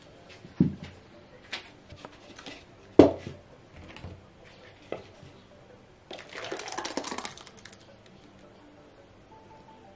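Clunks of a blender's lid and jug being handled, the loudest about three seconds in, then blended tomato purée pouring from the jug into a plastic tub for about a second and a half, starting a little after six seconds.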